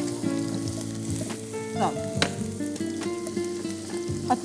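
Sliced onions sizzling as they fry in hot oil in a pot, stirred with a wooden spatula.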